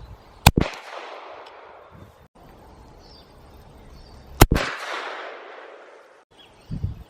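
Two .357 Magnum shots from a Citadel Levertac-92 lever-action rifle, about four seconds apart, each sharp crack followed by a long echoing tail.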